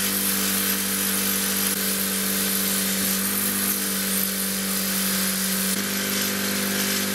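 Electric bench polisher running, its buffing wheel spinning as a small brass fitting is pressed against it and polished: a steady motor hum under the hiss of the wheel on the metal.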